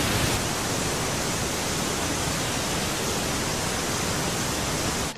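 Rushing water: a loud, steady, even rush of a large body of falling or churning water, cutting off suddenly at the end.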